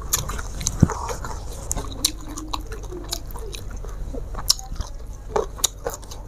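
Close-miked chewing and mouth sounds of someone eating a meal by hand, with many sharp, irregular smacks and clicks.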